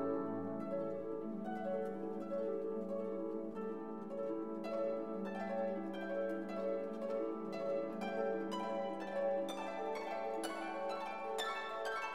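Background music: plucked harp and pizzicato strings over a held low note, the plucked notes growing busier in the second half.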